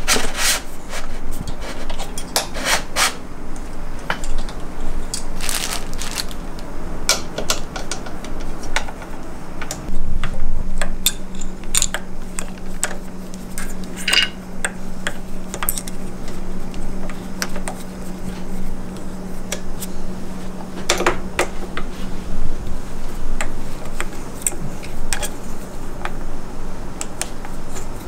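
Irregular metallic clinks, taps and scrapes of hard objects being handled. A steady low hum joins about ten seconds in.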